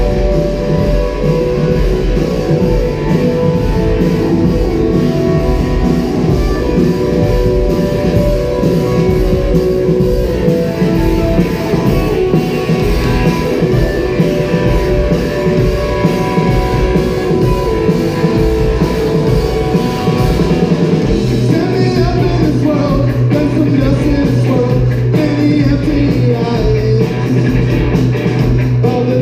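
Rock music with electric guitar, drums and singing, driven by a steady beat. About two-thirds of the way through, a held low guitar or bass note comes in.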